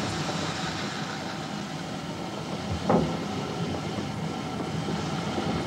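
Stirling single-wheeler steam locomotive (GNR No. 1) pulling away slowly from a stand: steady running and steam noise with one louder beat about three seconds in. The driver is easing the regulator open gently to avoid a wheel slip on its single pair of driving wheels.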